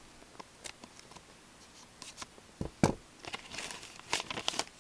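A folded paper slip being cut open with scissors and handled, with small snips and rustles and one knock just under three seconds in, then the paper crinkling as it is unfolded.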